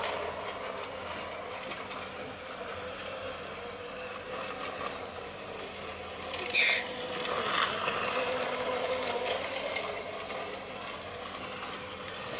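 Toy model train's small electric motor whirring steadily as it runs on plastic track, with light clicking from the wheels and gears; a brief louder swell about six and a half seconds in as the train passes close by.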